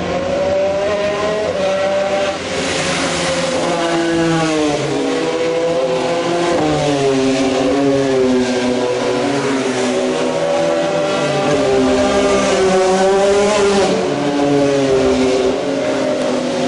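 IndyCar race cars' 2.2-litre twin-turbo V6 engines at high revs, several cars passing in turn, their pitches rising and falling and overlapping, over a steady hiss.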